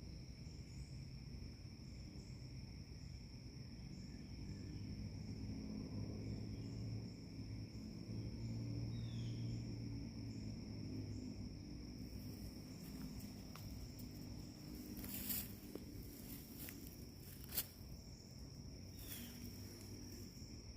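Insects trilling steadily in one continuous high-pitched tone, with a low rumble underneath and a few sharp clicks and rustles in the second half, one of them standing out.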